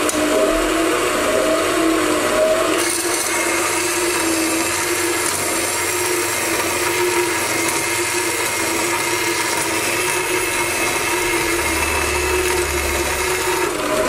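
Hitachi benchtop band saw running and cutting through a flat steel bar, a steady, even saw noise with a faint wavering whine. The cutting hiss turns brighter about three seconds in.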